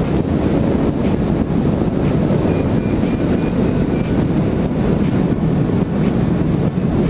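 Strong wind buffeting a small action camera's microphone, a steady low rumbling rush. A few faint high beeps come through about halfway.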